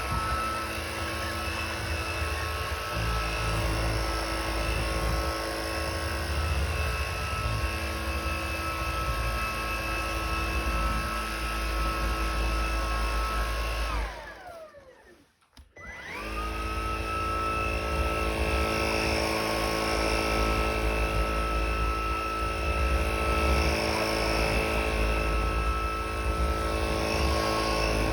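Stick vacuum running on a hardwood floor with a steady high motor whine. About halfway through it is switched off and the whine winds down to near silence, then it is switched back on and spins up to full speed again.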